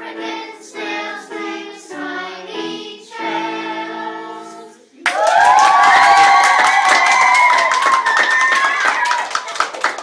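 A class of children singing a song together, ending about five seconds in. Then loud clapping breaks out with high children's voices cheering over it; the cheering fades after about four seconds while the clapping carries on.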